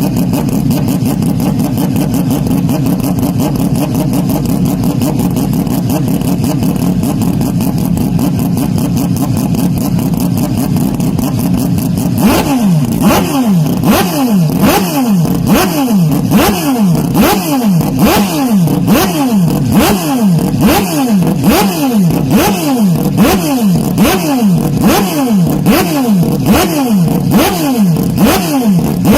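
Heavily overdriven racing-car engine sound. A steady drone runs for about twelve seconds, then changes to a fast, very regular rise and fall in pitch, about one and a half cycles a second, to the end.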